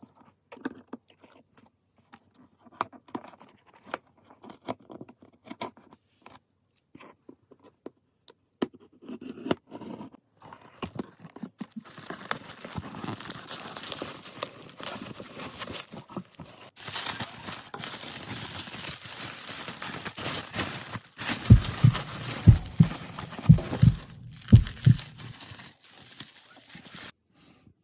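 Packaging of a DVD box set being handled and unwrapped: scattered small clicks and taps at first, then a long stretch of plastic wrap crinkling and tearing, with several dull thumps near the end.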